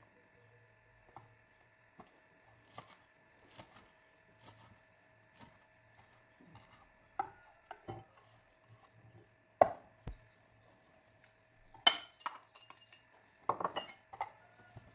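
Kitchen handling sounds at a glass salad bowl: scattered taps, knocks and clinks as chopped herbs are tipped in from a wooden cutting board and corn is added. Soft at first, with louder sharp knocks in the second half.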